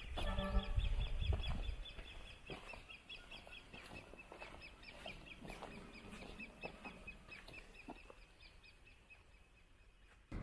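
Outdoor wildlife chirping: a steady run of short, high chirps, about five a second, fading away near the end. A brief call with a nasal, pitched tone sounds about half a second in, over some low rumble.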